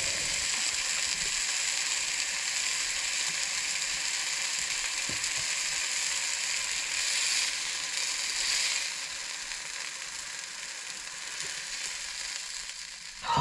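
Slices of beef tongue sizzling on a cast-iron griddle plate: a steady sizzle that grows quieter after about nine seconds.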